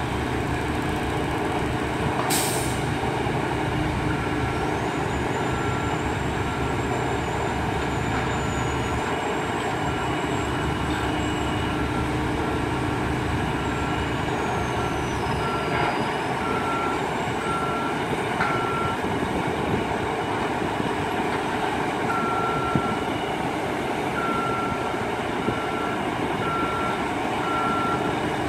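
Diesel engine of a truck-mounted crane running steadily under lift work, with a motion alarm beeping at about one beep a second in stretches. A single sharp click sounds about two seconds in.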